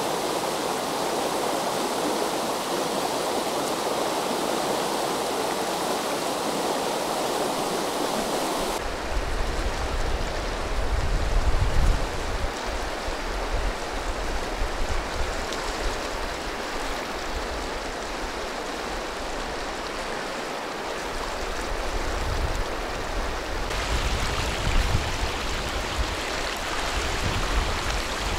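Mountain river rushing over stones, a steady wash of water noise. About nine seconds in the sound changes abruptly and an uneven low rumble comes and goes beneath the water.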